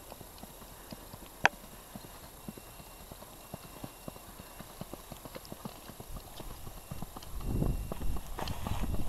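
Hoofbeats of a horse cantering on dry grassy ground, faint at first and growing louder near the end as it comes closer. A single sharp click about a second and a half in.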